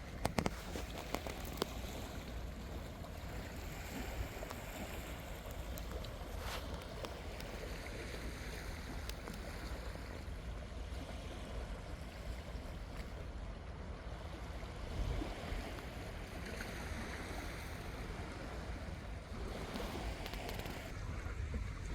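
Steady seaside wind and water noise, the wind rumbling low on the microphone, with a few sharp clicks near the start and about six and a half seconds in.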